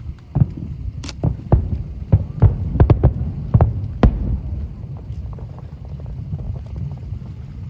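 Aerial firework shells bursting: a rapid string of about a dozen booms and sharp bangs over the first four seconds, followed by a steady low rumble with small cracks.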